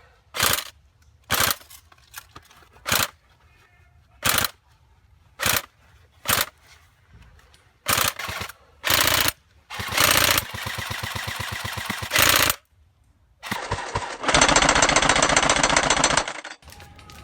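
Airsoft guns firing: sharp single shots about a second apart, then two long full-auto bursts with a fast, even rattle near the end.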